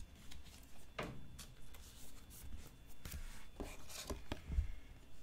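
Trading cards being handled: light scrapes, slides and small taps as cards are set down and slid off a stack by hand, several separate clicks spread through.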